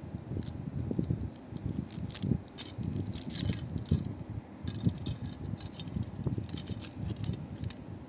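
A stainless steel watch bracelet clinking and jingling as the watch is handled and turned in the hand, in quick irregular clusters of small metallic clicks.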